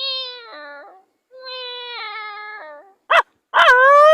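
A man imitating animal calls with his voice: two drawn-out whining cries, a short sharp yelp just after three seconds, then a long whining cry that rises in pitch near the end.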